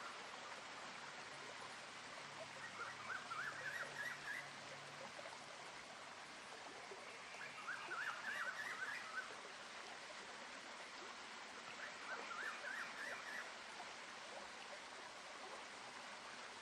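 Steady rush of a waterfall's flowing water, with a bird singing three short phrases of rapid chirping notes, about five seconds apart.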